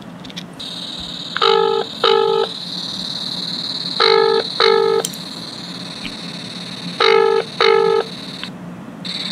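A double-ring telephone ringback tone comes from a Fire-Boltt Ninja Calling Pro Plus smartwatch's speaker while an outgoing call waits to be answered. It plays three times, each time two short beeps, with a steady high hiss underneath.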